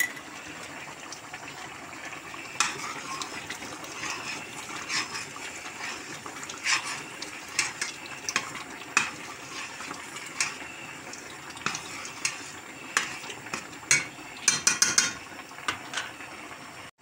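Metal spoon stirring thick tomato sauce in a stainless steel pot, clinking and scraping against the pot's sides and bottom at irregular intervals, with a quick flurry of clinks near the end.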